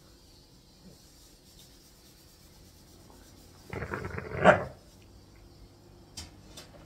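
English bulldogs, an adult and a puppy, at a chew treat: mostly quiet, then a little past halfway a short, loud vocal outburst from one of the dogs, followed by a few faint clicks near the end.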